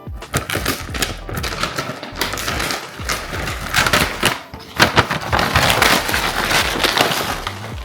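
Dense run of crackles and small clicks from a package of cinnamon pecan granola being handled.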